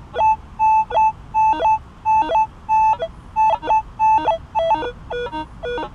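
Minelab CTX 3030 metal detector sounding target tones as the coil sweeps over the ground: short beeps about twice a second, mostly one steady mid-pitch tone mixed with lower and changing tones, the sign of several targets lying close together. Toward the end the tones drop lower and come more broken.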